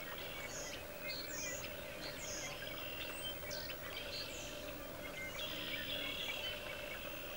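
A chorus of wild birds: many short chirps, trills and downward-sweeping whistled calls overlapping one another. Underneath runs a steady low drone, the deep thrumming of prairie chickens booming on their lek.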